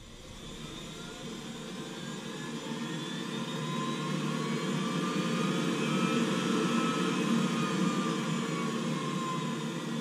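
Navien NCB-240 combi boiler's combustion fan motor running its fan test: a whine that rises in pitch and grows louder as the fan spins up to its top speed, peaking about six to seven seconds in, then easing back down near the end. Tech support has already judged this fan motor, the source of the boiler's loud vibration noise, in need of replacement.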